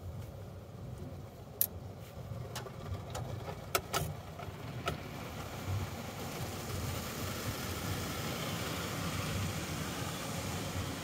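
Automatic tunnel car wash heard from inside the car. A low rumble with a few sharp knocks runs through the first five seconds, then water spray hits the car's glass as a steady hiss from about six seconds in.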